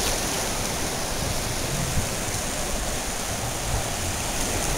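Shallow surf washing over sand: a steady, even rush of water.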